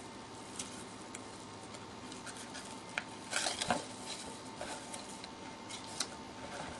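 Faint rustling and light taps of a paper seed packet and cardboard gift box being handled, with a short burst of rustling about three and a half seconds in.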